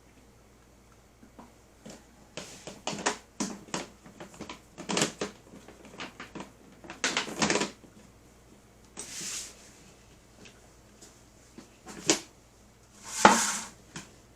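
Irregular handling noises: rustling, scraping and knocks, with a few sharp clicks and a loud swish near the end.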